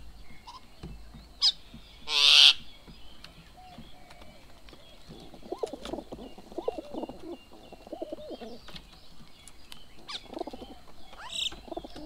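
Rock pigeons cooing in repeated low bursts at the feeding table. A loud, harsh bird call comes about two seconds in, and a few short high rising whistles are heard around it.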